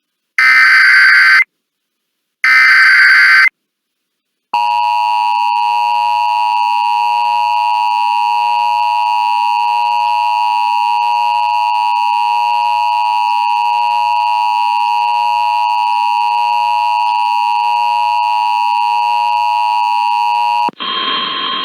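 Emergency Alert System broadcast opening: two harsh, buzzy data bursts about a second each (the digital SAME header), then the steady two-tone EAS attention signal held for about sixteen seconds, cutting off abruptly near the end as the warning begins.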